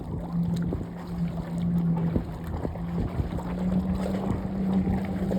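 Jet ski engines humming steadily as the watercraft pull up close, one engine's pitch stepping up about three and a half seconds in, over water and wind noise with a few small knocks.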